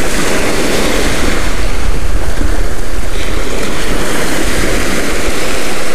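Steady wind noise on the microphone over the wash of waves on the shore.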